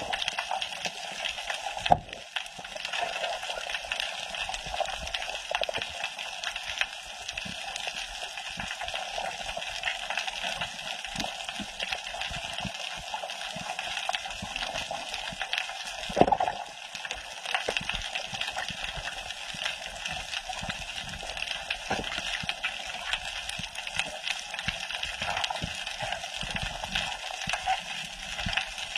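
Underwater reef ambience: a steady wash of water noise with fine crackling clicks throughout. Two sharp knocks stand out, about 2 seconds in and again about 16 seconds in.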